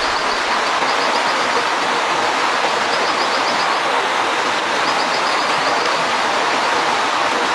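A steady, even rushing hiss, with short trains of rapid high chirps every second or two over it.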